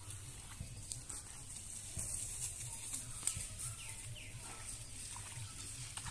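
Footsteps and brushing through wet weeds on foot, with a few clicks over a steady high hiss, and a few faint short chirps near the end.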